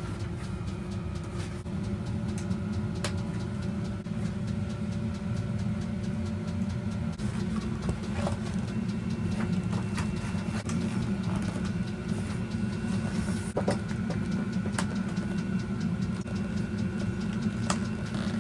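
A steady low mechanical hum, like an engine or motor running, with a few scattered light clicks and taps.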